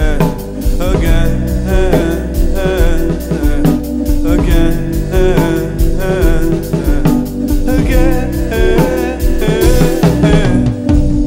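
Background music: a song with singing over a steady drum-kit beat.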